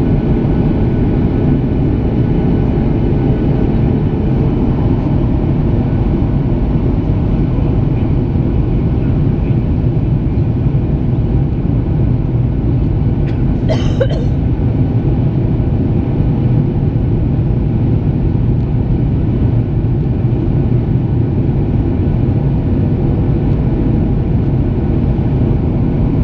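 Steady cabin roar of a Boeing 737 during descent on approach, heard from a seat over the wing: the CFM56 turbofan engines and the rushing airflow blend into a constant low rumble. About halfway through there is one short, sharper sound.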